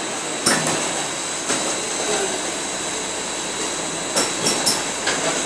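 A Magic bottle shrink-wrapping machine running: a steady mechanical whir with a high, even whine. It is broken by sharp clacks, one about half a second in, another a second later, and three in quick succession near the end.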